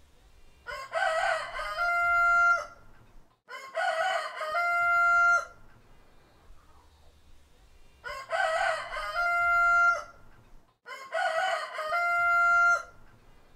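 Rooster crowing four times, about every three seconds. Each crow starts rough and broken and ends on a long, steady held note.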